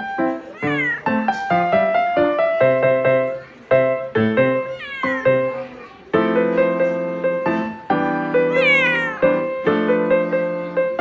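Siamese cat meowing three times while being rubbed dry with a cloth, each meow falling in pitch, the one about two-thirds through the longest. Piano music plays throughout.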